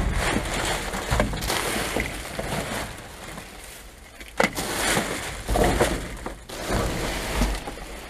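Plastic film, bubble wrap and paper rustling and crinkling in uneven bursts as gloved hands rummage through rubbish in a bin, with a few sharp crackles and dull knocks.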